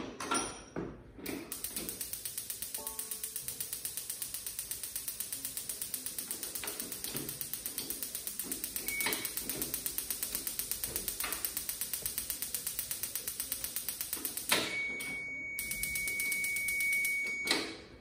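Paloma gas stove's spark igniter clicking rapidly, about five clicks a second, while the knob is held in and the gas line is purged of air before gas reaches the burner. About 14.5 s in, the clicking stops as the burner catches with a sudden burst, followed by a steady high beep lasting about three seconds.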